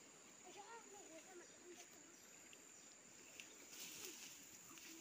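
Near silence with a faint, steady high-pitched insect drone, like crickets, and a few faint short calls in the first second or two.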